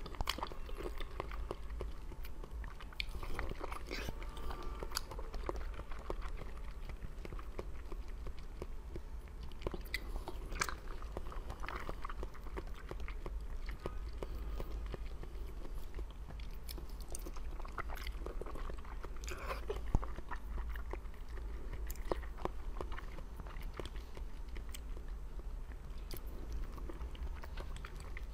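A person biting and chewing colourful jelly, with many small scattered clicks and one sharper click about twenty seconds in, over a steady low hum.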